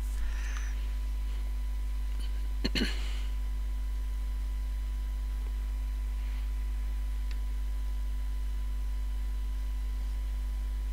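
Steady low electrical hum, with a brief soft click a little under three seconds in.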